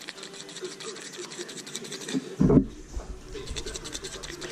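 A hand scratching a Siberian husky's fur on its head and cheek close to the microphone, a quick run of rubbing strokes. A brief, loud, low thump comes about two and a half seconds in.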